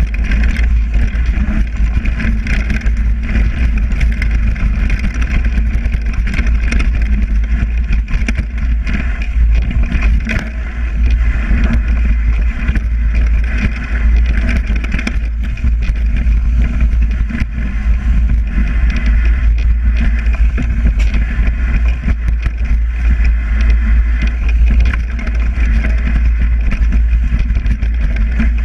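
Mountain bike riding fast down a leaf-covered dirt trail: heavy wind rumble on the camera's microphone, with the tyres rolling through dry leaves and the bike rattling with many small knocks over bumps.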